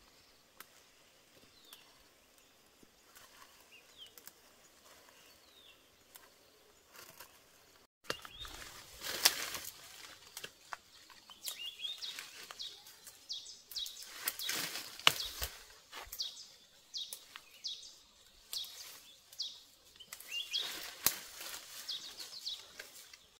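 Birds chirping over faint outdoor noise. From about eight seconds in, close rustling and repeated sharp cracks and snaps join the chirping.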